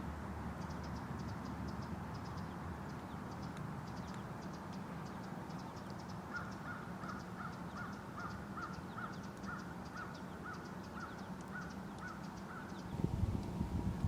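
A bird calling in a steady series of about a dozen short notes, roughly two a second, over faint high chirping of small birds and a steady low background. Near the end a louder low rumble comes in.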